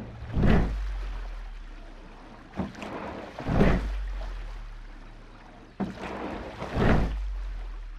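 Rowing strokes at a steady, unhurried rate, about one every three seconds: each a short knock followed a second later by a loud rushing whoosh that fades away before the next stroke.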